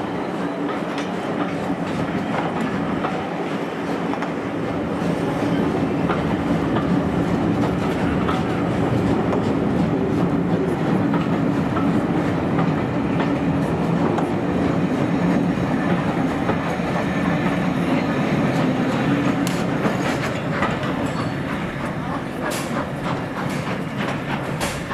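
Passenger coaches of a departing steam-hauled train rolling past at low speed: a steady rumble of wheels on rail that swells, then eases as the train draws away, with sharp clicks over the rail joints near the end.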